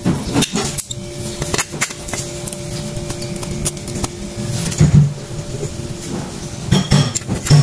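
Metal clicks and clinks as Mitsubishi L300 drum-brake shoes and coiled return springs are handled and offered up to the brake backing plate by hand, with a faint steady hum underneath for the first half; the clicks come thicker near the end.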